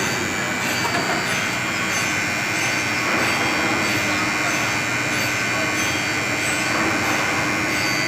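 Induction hardening machine running through its heating cycle: a steady, even machine noise with a thin, steady high whine over it.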